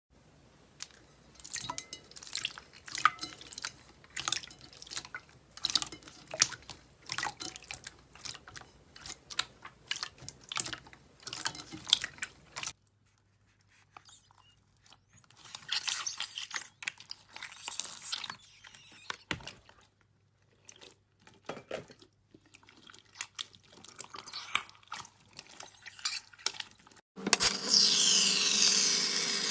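Slime being squished and poked by hand, making an irregular string of wet, sticky clicks and pops. Near the end there is a louder, steady hiss.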